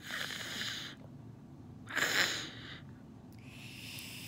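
A woman's breath in three unvoiced, breathy gasps and exhalations, the loudest about two seconds in, the last one higher and hissier.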